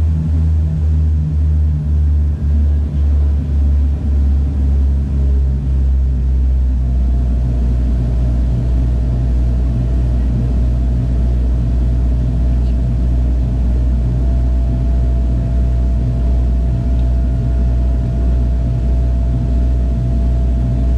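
Cabin drone of a Bombardier Dash 8-Q200's Pratt & Whitney Canada PW123 turboprop engines and propellers in climb, heard next to the engine. The low hum pulses about twice a second for the first few seconds, then evens out into a steady drone.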